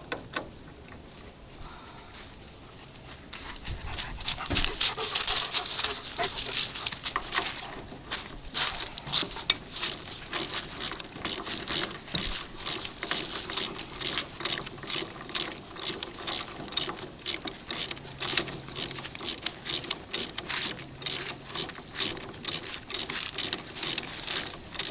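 Rapid, irregular metallic clicking and rattling as 3/8 bolts are threaded into a steering wheel puller. It starts a few seconds in and goes on without a break.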